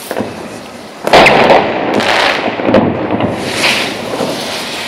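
New Year's Eve fireworks and firecrackers going off: one sudden loud bang about a second in, then a dense run of further bangs and crackling.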